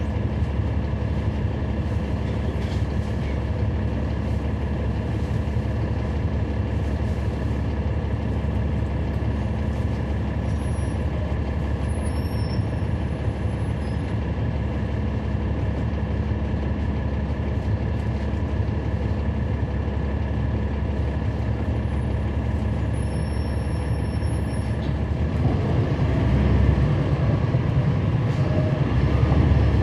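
Cummins ISL9 straight-six diesel of a NABI 40-SFW transit bus idling steadily, heard from inside the bus. About 25 seconds in, the engine gets louder and deeper as the bus pulls away.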